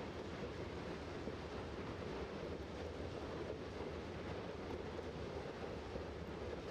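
Low-loader freight wagons rolling past on the track, a steady, even noise.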